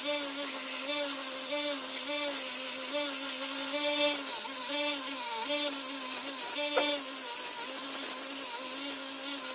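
Belt grinder running steadily, its motor humming under the high hiss of a small steel spike being ground against the belt, with a slight regular dip a bit under twice a second.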